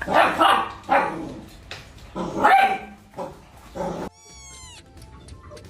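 A dog barking repeatedly in loud, sharp barks. About four seconds in it cuts off abruptly, and a short, high call with falling pitch follows.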